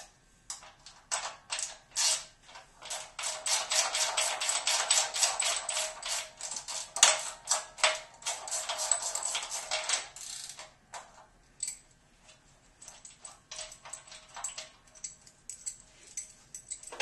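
Ratcheting half-inch wrench clicking in quick runs as steel frame bolts are loosened and backed out, densest and loudest through the middle, sparser at the start and near the end.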